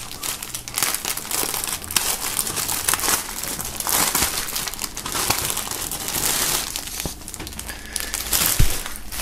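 Clear plastic film bag crinkling as hands slide a folded T-shirt out of it, a continuous run of small crackles.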